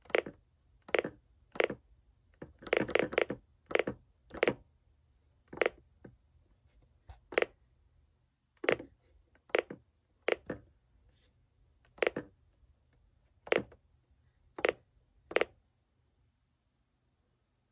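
Buttons on a Reecom NOAA weather alert radio being pressed to step through its date and time settings: about twenty short, sharp clicks at an uneven pace, with a quick run of presses around three seconds in.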